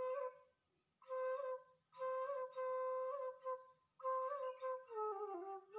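Background music: a soft solo melody on a flute-like wind instrument, played as short phrases of held notes with small turns and brief gaps between them, falling step by step near the end.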